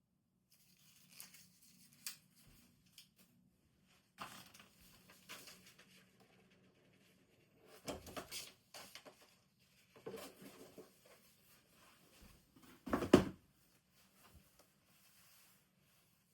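Packaging being handled during an unboxing: intermittent rustling and tearing of paper or card, with scattered light knocks and a sharper knock about 13 seconds in.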